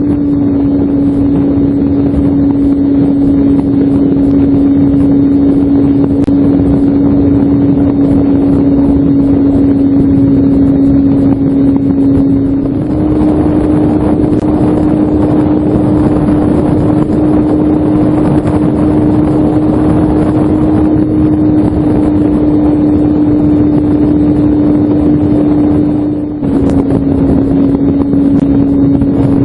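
Skywalker 168 FPV plane's electric motor and propeller running at a steady throttle under a loud wind rush. The motor's tone steps up slightly about halfway through and drops back near the end, with a brief dip in level.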